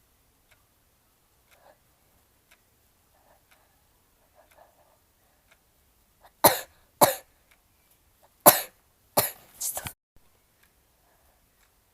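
A man's sharp, explosive bursts of breath through nose and mouth, five in quick succession about six to ten seconds in, brought on by tickling the inside of his nose with a twisted tissue; before them only faint sniffing and rustling.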